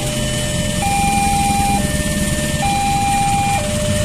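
Railway level-crossing warning alarm sounding a steady two-tone electronic signal, alternating high and low about once a second. It is the warning that a train is approaching while the barrier is down. Vehicle engines run underneath it.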